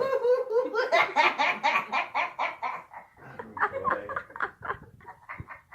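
A woman in a fit of helpless laughter, her laughs coming in rapid pulses about five a second, growing weaker and more breathless over the last couple of seconds.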